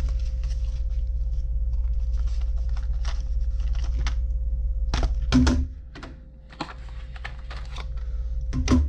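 Clear plastic battery cases clicking and rattling as they are handled and pulled out of a small cardboard box, with the cardboard rustling. There are two louder knocks, about five seconds in and near the end, over a low hum.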